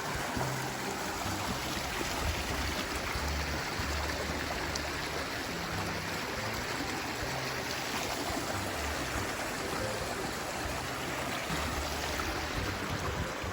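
Background music with a low bass line stepping from note to note, over a steady rushing, stream-like noise.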